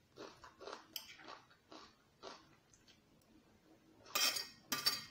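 Close-up mouth sounds of someone chewing a mouthful of rice and tomato: a run of short soft chews. Then, near the end, two louder, sharper sounds as a metal spoon scoops across a ceramic plate.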